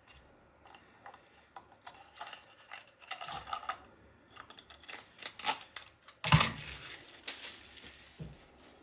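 Handling and unpacking steel lathe tool post parts: rustling of packaging with scattered light clicks and clinks, and one heavy knock a little past the middle.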